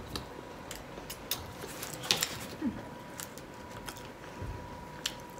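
Soft eating sounds: scattered wet mouth clicks and chewing of shrimp nachos, with a faint steady tone underneath.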